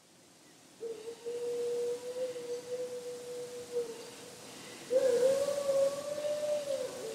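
A dog howling: two long, drawn-out howls. The second starts a couple of seconds after the first, scoops up in pitch at its start and drops away at its end.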